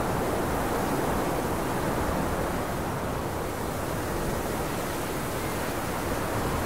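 Steady, even hiss with no distinct sounds in it, heaviest in the low and middle range.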